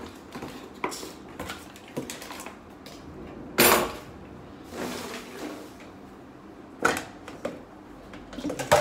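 Dishes, cups and cutlery being gathered and handled in a kitchen: scattered clinks and knocks, with one louder, brief rustle about three and a half seconds in and a quick run of knocks near the end.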